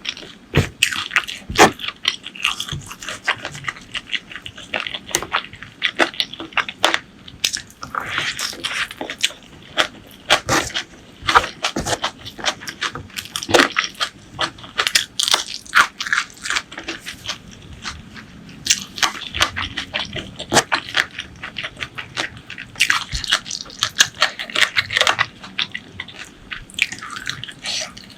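Close-miked eating: irregular bites, crunching and wet, smacking chewing throughout.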